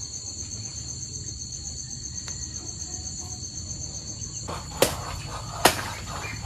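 Insects trilling steadily in a high, fast-pulsing chorus. About five seconds in come two sharp knocks, roughly a second apart.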